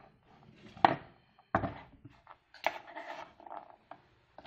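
Chopped garlic pieces being gathered by hand off a wooden cutting board and dropped into a stone mortar: a handful of irregular knocks and light clatters.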